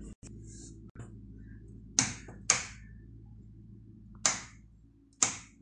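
Four sharp clicks in two pairs, about half a second and then about a second apart, from the switches on the control panel of an electric double-deck pizza oven being flicked, over a faint steady low hum.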